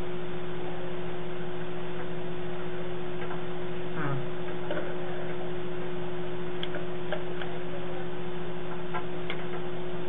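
Steady electrical hum and hiss of a surveillance-camera room recording, with a few faint clicks in the second half.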